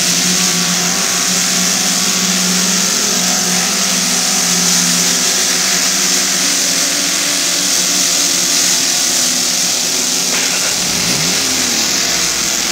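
Lifted mud-bog pickup truck's engine held at high revs as the truck churns through a deep mud pit, a steady drone under a constant hiss, with a brief shift in pitch near the end.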